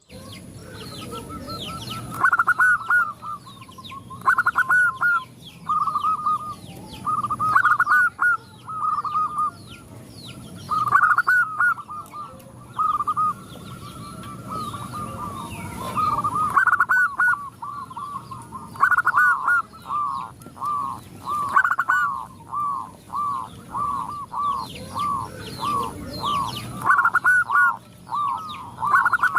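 Zebra doves (perkutut) cooing in repeated warbling phrases, several birds calling over one another; later the calls run into long even trains of short coos, about two a second.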